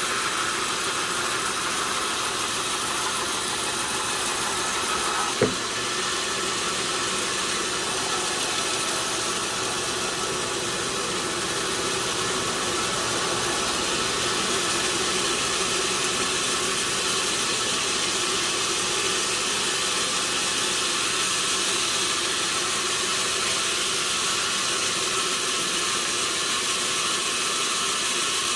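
Sawmill machinery running with a steady, even noise, with one short sharp knock about five seconds in.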